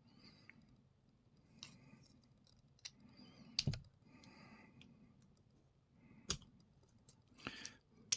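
Faint, scattered metal clicks and light scraping of a small tool prying a circlip off the core of a Brady Abus 71/40 lockout padlock, with about half a dozen separate clicks, the sharpest about three and a half seconds in.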